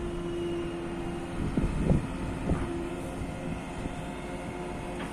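JCB 540-170 telehandler's 110 hp JCB diesel engine running with a steady whine while its raised boom is worked. A few short thumps come around two seconds in.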